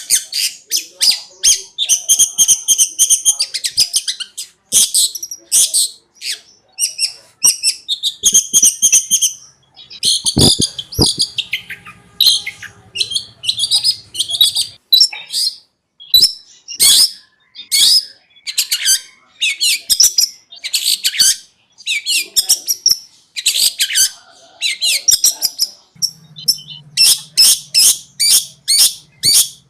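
Long-tailed shrike (cendet) singing a fast, chattering string of harsh, high notes in bursts with brief pauses: the rapid 'konslet' song style. A faint low hum sits beneath it in places.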